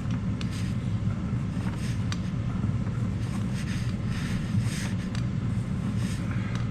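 Steady low hum with scattered light rustling, scraping and a few clicks as electrical wire is handled and fed through the RV ceiling.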